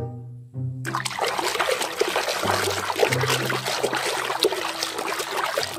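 Water sloshing and splashing in a tub as a hand swishes through foamy soap water, starting about a second in.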